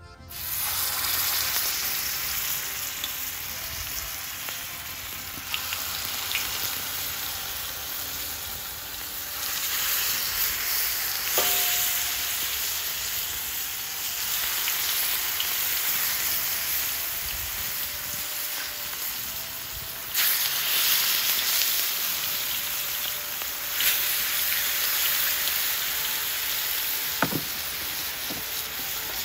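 Bone-in veal rib chops sizzling hard in hot oil on a saj griddle. The sizzle starts suddenly and steps up several times as more chops go down, with a few sharp spitting pops.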